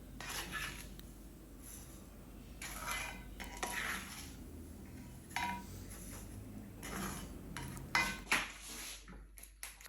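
Metal utensil scraping and knocking in an iron kadai as crispy roasted millet flakes are scooped out, with a few sharper clinks in the second half.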